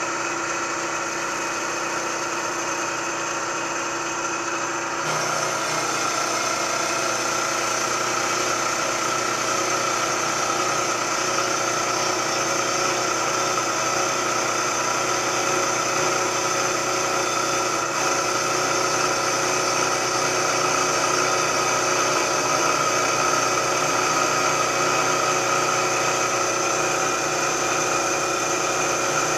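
Vertical milling machine running, its cutter taking a pass across a rough cast iron angle plate casting as the table feeds it along: a steady machining whine with several held tones, a little louder about five seconds in.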